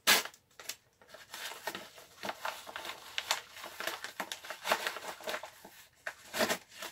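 Paper mailer envelope being torn open and handled, with irregular crinkling and rustling of the paper, loudest right at the start and again near the end.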